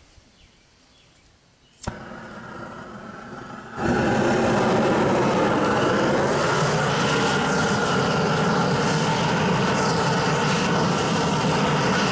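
A propane torch being lit: a sharp click, then a gas hiss for about two seconds, then about four seconds in the flame opens up into a loud, steady rushing burn that holds, aimed into charcoal to light it.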